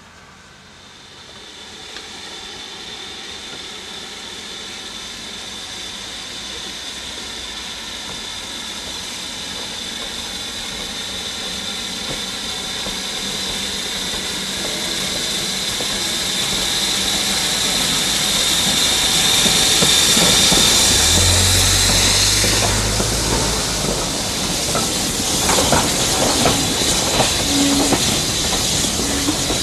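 Steam locomotive with its train: a steady hiss of escaping steam that grows louder for about twenty seconds, then a deep rumble and irregular clicking of wheels over the rail joints as the train passes near the end.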